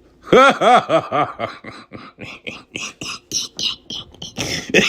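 A person's voice in a rapid run of short, pitched bursts, loudest in the first second, then weaker, with another loud cluster near the end.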